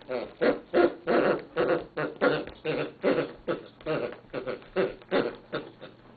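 Squeaker inside a large plush hedgehog dog toy sounding over and over, about three to four short honking squeaks a second, as a dog chews and squeezes it; the squeaking stops right at the end.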